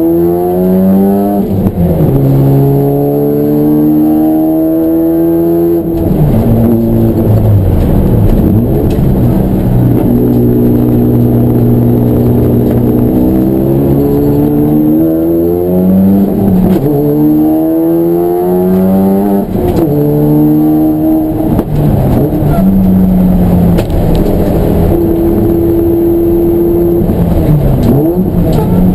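Race car engine running hard: its pitch climbs through each gear, drops sharply at the upshifts, and falls away several times under braking before climbing again.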